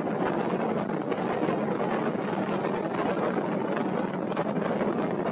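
Wind blowing over the microphone and choppy sea, a steady rush crackling with short gusts.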